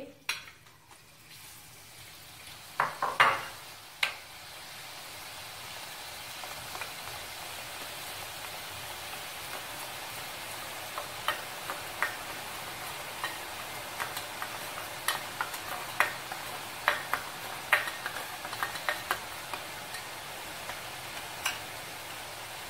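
Besan batter dripping through a perforated steel ladle into hot oil and frying as boondi, with a steady sizzle that builds over the first few seconds. A spoon scraping and tapping on the steel ladle makes sharp clicks, a few early and many in the second half.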